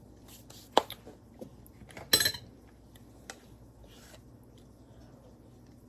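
A utensil clinking and knocking against a dish of jello while it is eaten: a sharp click about a second in, then a louder clatter of clinks about two seconds in, and a faint tick after.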